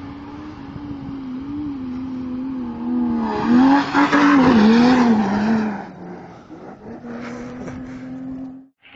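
A vehicle engine running at high, steady revs, its pitch wavering up and down, with a louder rushing noise over it from about three to six seconds in. The sound cuts off abruptly just before the end.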